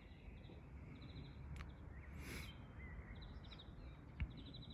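Faint outdoor background: a steady low rumble with small birds chirping in short repeated bursts, and a soft thump near the end.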